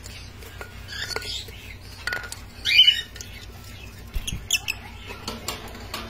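Lutino peach-faced lovebirds making short squawks and squeaks scattered through, the loudest about three seconds in, with some scratchy clicks.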